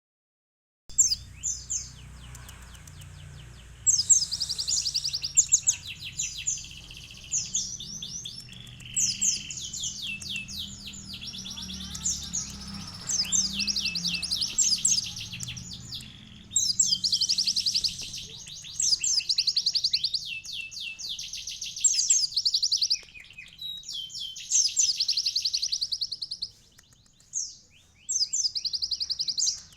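Captive sunbird ('kolibri') singing a fast, high, trilled song that carries canary-style fill-in phrases. The song comes in runs of a few seconds broken by brief pauses, over a faint low hum for the first half.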